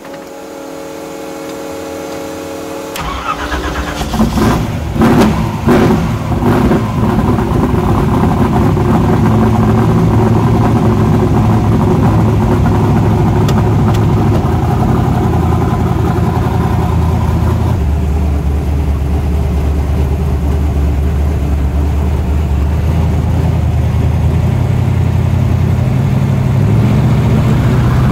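A 522 cubic-inch twin-turbo big-block Chevrolet V8 is started, heard from inside the cabin. About three seconds of steady cranking give way to ragged, uneven firing as the engine catches, and it then settles into a steady, loud idle that deepens about two-thirds of the way through and rises in pitch at the very end.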